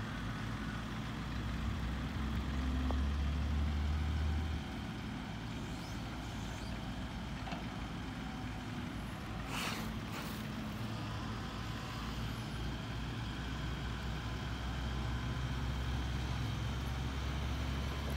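Heavy diesel engine running with a low, steady drone, louder for the first four seconds or so, with a short hiss about ten seconds in.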